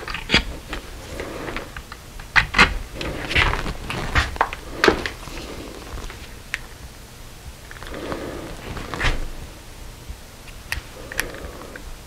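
Scattered small clicks and taps from multimeter test leads and their probe tips being handled and fiddled with by hand.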